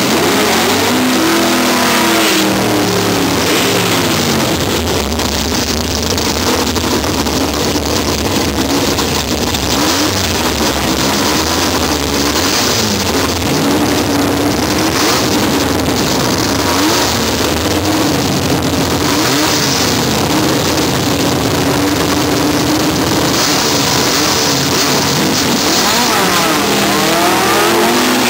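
Two drag cars, a Volkswagen Beetle and a Chevrolet Nova, revving hard at the start line with the pitch rising and falling. About halfway through they launch and run at full throttle down the drag strip.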